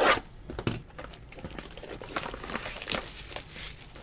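Cardboard box being opened and its foil-wrapped card pack handled, the foil crinkling in short, uneven crackles, with a sudden loud rustle right at the start.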